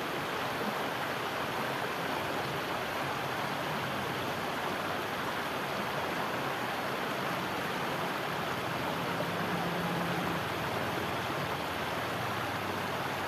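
Shallow stream flowing over stones, a steady, even rush of water.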